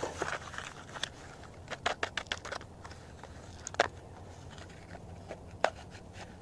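Light clicks and taps of a cardboard box of stick firecrackers being handled in gloved hands, the sticks and flap knocking: a quick run of clicks about two seconds in, then single sharper ticks near four and five and a half seconds.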